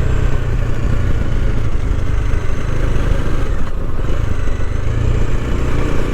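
Motorcycle running on the road, a steady low rumble of engine and riding noise picked up by a helmet-mounted lavalier microphone.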